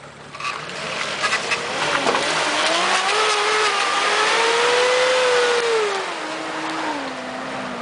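Off-road vehicle's engine revving under acceleration. Its note climbs over a few seconds, peaks about halfway through and is loudest there, then drops away steadily, with a few sharp knocks near the start.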